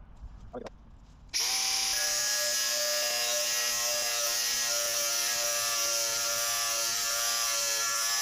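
Bosch GWX 18V-15 SC cordless angle grinder with a multimaterial disc cutting through ribbed steel rebar. It starts about a second in, rising briefly in pitch, then runs at a steady whine with a high grinding hiss.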